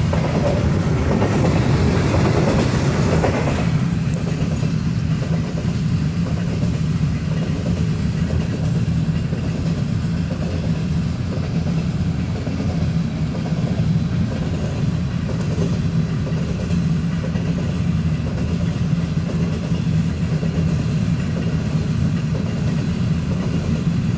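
Kansas City Southern freight train of grain hopper cars rolling past a grade crossing, heard from inside a car: a steady rumble, a little louder in the first few seconds.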